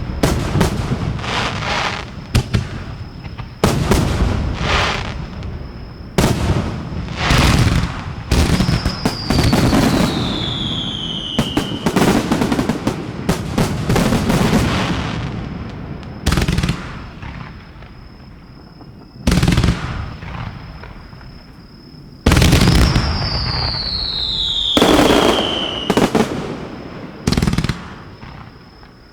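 Aerial fireworks going off at close range: a rapid, irregular series of sharp bangs from shells launching and bursting, each trailing off. Twice a whistle glides down in pitch over two or three seconds amid the bangs.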